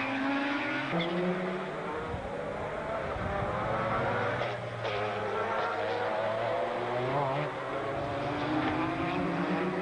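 Engines of Group C sports-prototype race cars running at speed as several cars go past in succession, their notes overlapping. The pitch climbs as the cars accelerate, with brief breaks where they shift.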